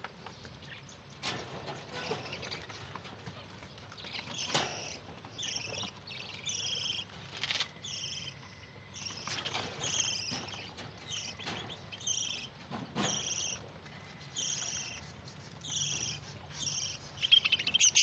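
Budgerigars chirping: a fast run of short, repeated high chirps that starts about four seconds in and keeps going, with a few sharp clicks among them.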